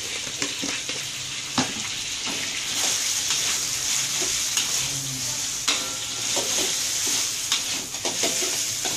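Diced chicken frying in oil in a wok with a steady sizzle. A metal spatula stirs and scrapes it, clinking against the wok now and then.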